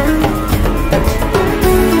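Background music with a drum beat under a melody of held notes.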